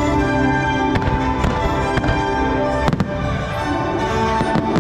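Fireworks bursting over a loud music soundtrack of held chords, with one sharp bang standing out about three seconds in.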